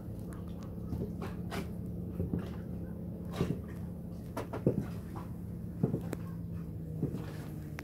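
Silver platform stiletto heels knocking on wooden deck boards: irregular single knocks, about ten in all, as the wearer shifts her weight and steps, over a steady low hum.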